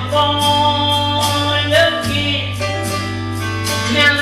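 Country gospel song: a held sung note over guitar, bass and a steady beat.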